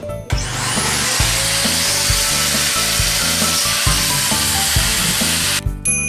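A small electric motor spins up with a quick rising whine and drives a loud, steady rush of air for about five seconds, then cuts off suddenly. Background music with a steady beat runs underneath.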